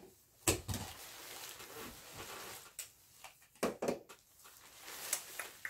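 Thin plastic rain poncho crinkling and rustling in irregular crackles as the wearer bends and moves, a little noisy.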